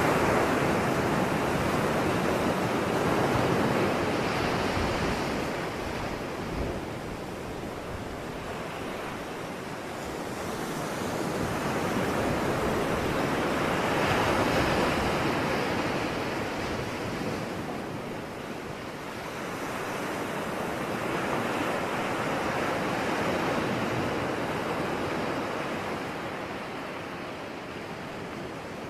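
Ocean waves breaking and washing on a shore, swelling and fading in slow surges every several seconds.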